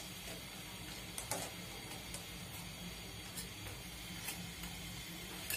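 Flower pitha (rosette fritters) frying in hot oil in a metal karahi: a faint, steady sizzle with a few scattered sharp ticks.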